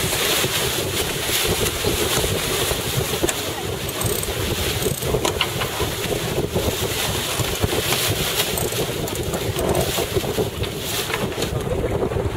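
Wind buffeting the microphone and water rushing past the hull of a racing sailboat under way, with a few light knocks from the deck.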